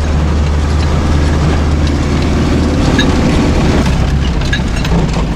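A vehicle's engine running steadily while driving over a field, with small rattles; about four seconds in the engine note drops.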